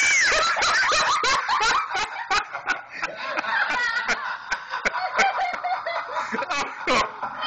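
A person laughing hard in high-pitched cackles and snickers, in quick irregular bursts.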